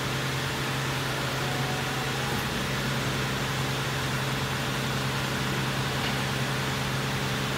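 Steady low machine-like hum over a constant even hiss, unchanging throughout; no birdsong stands out.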